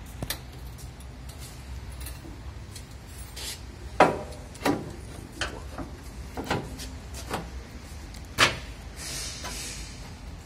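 Irregular knocks and clanks of hands and tools working on an SUV's rear suspension, over a steady low hum; the two loudest knocks come about four seconds and eight and a half seconds in.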